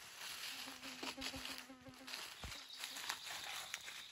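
A flying insect buzzing in a steady hum from about half a second in until just past two seconds, with a few soft knocks.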